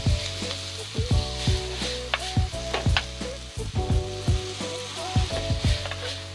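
Pork and shrimp paste sizzling in a hot pan as it is stirred, with a steady frying hiss. Background music with a repeating tune and beat plays over it.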